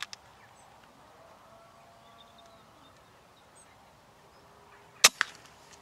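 A single shot from a BSA Superten .22 pre-charged air rifle about five seconds in: a sharp crack, followed a moment later by a second, smaller knock. Before the shot there is only faint outdoor background.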